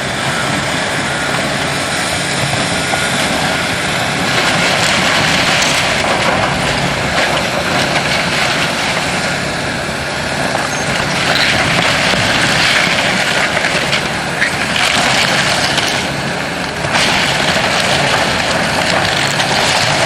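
Heavy demolition machinery working on a warehouse: engines running under a continuous loud crunching and grinding of building debris that swells and eases several times.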